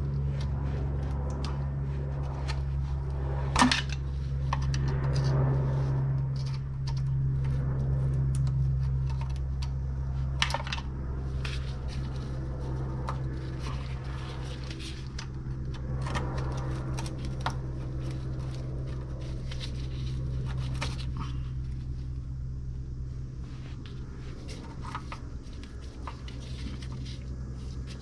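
Scattered metal clinks and taps of a hand wrench working bolts on the car's underside, a few sharper knocks among them, over a steady low hum.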